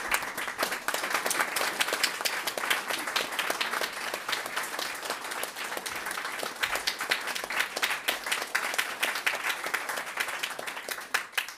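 Audience applauding: many hands clapping in a dense, irregular patter that fades out near the end.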